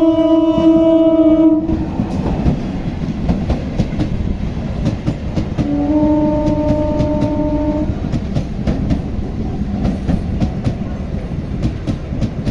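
Train horn sounding and cutting off about a second and a half in, then a train passing with a steady rumble and the clickety-clack of wheels over rail joints. A second horn blast of about two seconds comes around six seconds in.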